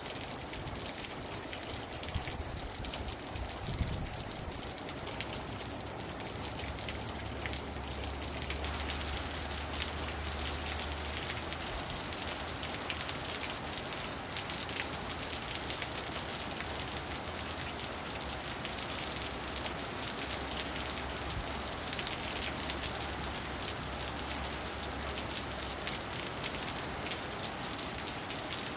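Heavy rain falling, a dense steady hiss of countless drops; about eight seconds in it grows louder and heavier and stays that way.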